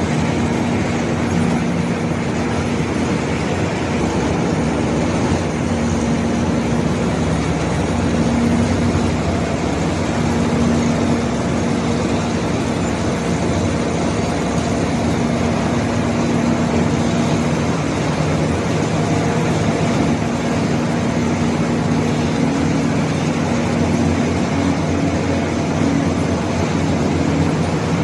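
Heavy diesel machinery running with a steady, continuous drone while an excavator and bulldozer work a pile of coal.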